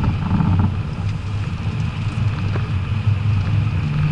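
BMW 535d's twin-turbo diesel straight-six pulling steadily with a low drone, heard from inside the cabin along with road noise on a wet track.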